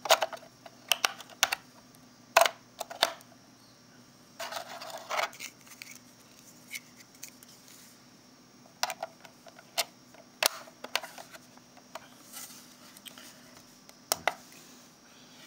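Sharp, irregularly spaced plastic clicks and knocks as AA batteries are pressed into the battery compartment of an SF-400 electronic kitchen scale and the plastic compartment cover is fitted, with a brief rustle about four seconds in.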